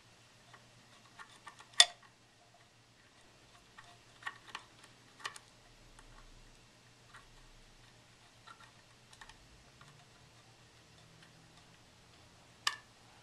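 Screwdriver driving the small steel screws of a sewing machine throat plate: scattered light metal clicks as the tip seats and turns in the screw heads, with a sharper click about two seconds in and another near the end, over a faint steady hum.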